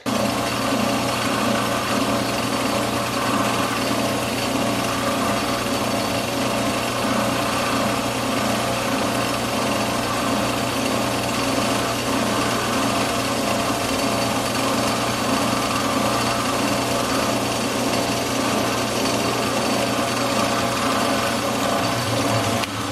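Small metal lathe running at a steady speed: an even mechanical whir of motor and gears while the edge of a steel stud is chamfered.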